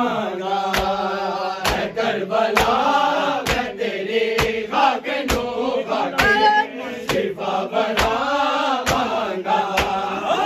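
Group of men chanting a Punjabi noha refrain in unison, with sharp chest-beating (matam) striking in time at about one stroke a second. Near the middle one higher voice rises above the group.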